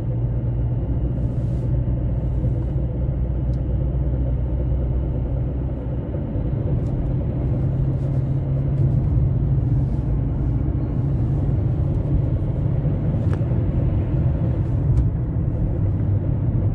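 Cabin sound of an Opel Astra J 1.3 CDTI diesel driving in gear under load: a steady engine and road rumble, carrying the noise of its worn F17 gearbox, which the owner puts down to a worn shaft and bearing and which goes away with the clutch pushed.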